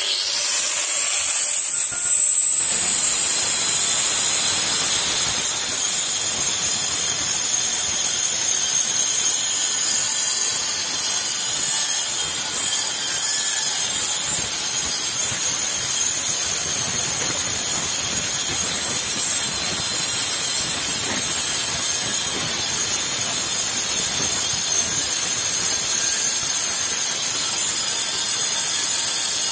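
Angle grinder fitted with a GRAFF Black Professional diamond cutting disc, cutting a curved line through thin painted sheet steel. It spins up in the first couple of seconds, then runs steadily under load: a high whine from the motor and disc with the hiss of the cut.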